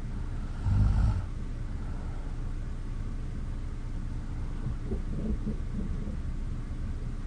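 A sleeping person snoring: one short, loud snore about a second in, then a fainter breathy sound around five seconds in, over a steady low background rumble.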